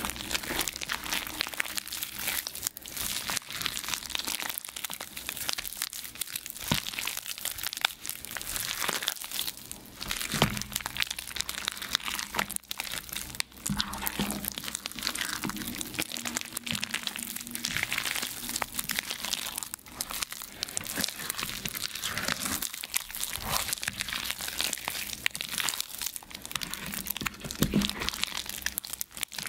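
Reformed gym chalk being crushed by hand: a continuous run of crisp, crackling crunches with brief pauses.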